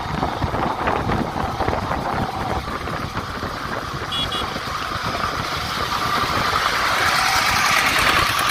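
A power tiller's single-cylinder diesel engine running as it hauls a trolley load of soil along a road, with a rapid low pulsing. A rushing noise swells over the last few seconds.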